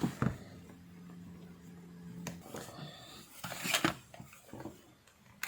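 Scattered sharp plastic clicks and light handling of a hair trimmer's plastic housing as it is put back together and fastened, with a click at the start and a cluster of clicks about three and a half seconds in.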